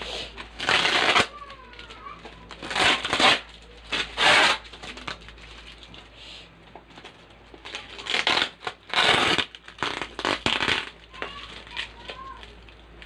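Packaging of a delivery parcel being handled and opened: about seven bursts of rustling and scraping noise, each under a second, with quieter handling between them.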